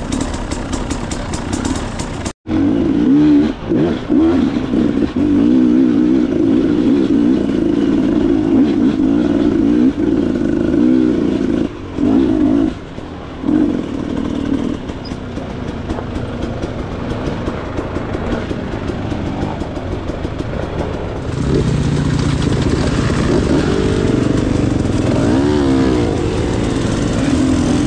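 Dirt bike engine running and revving, its pitch rising and falling with the throttle. The sound cuts out for an instant about two seconds in.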